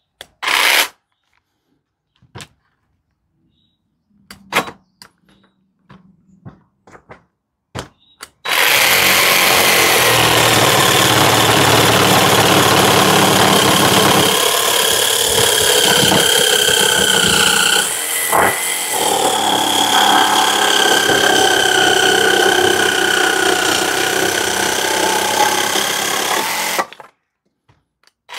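A few scattered clicks and knocks of handling, then a power tool motor starts about eight seconds in and runs loud and continuous for about eighteen seconds, its whine wavering in pitch, before it stops abruptly.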